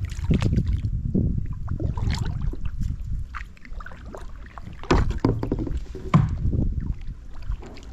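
Canoe paddles dipping and pulling through river water, irregular splashes and knocks against the boat, the loudest about five and six seconds in, over a low rumble on the microphone.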